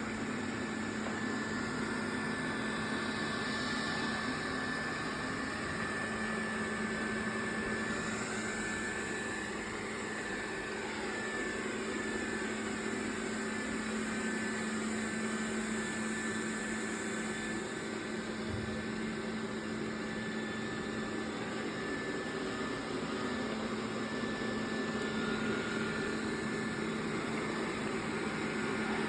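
Xiaomi Robot Vacuum S10+ running on its maximum suction setting: a steady fan hum with a high whine over it, a bit noisier on more power, likened to an electric fan.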